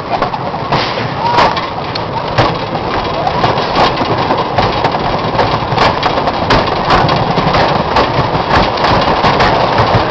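Hurricane wooden roller coaster train running over the wooden track: a steady rumble with a rapid, uneven clatter of wheel clicks, growing a little louder toward the end.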